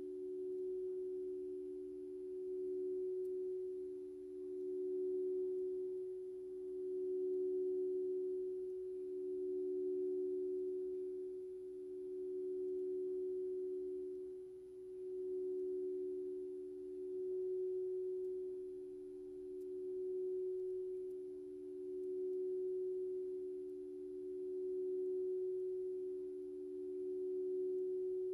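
Two steady electronic pure tones, close in pitch, held together as a meditation 'frequency' track, swelling and fading in volume about every two seconds.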